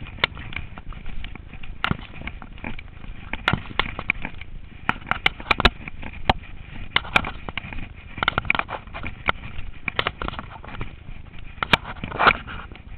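Mountain bike descending a rough, rocky dirt singletrack: irregular sharp knocks and rattles from the bike and its tyres hitting stones and roots, over a constant rough rumble. The hardest knocks come about halfway through and near the end.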